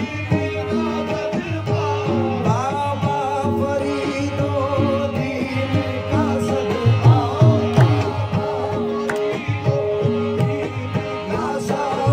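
Qawwali music: sung vocals with tabla and harmonium, the harmonium holding steady notes under the voice's ornamented lines and the tabla keeping a regular beat.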